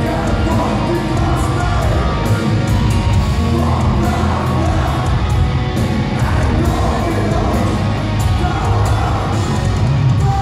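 Post-black metal band playing live: distorted electric guitars, drums and cymbals, with screamed vocals, heard loud over the PA from the crowd.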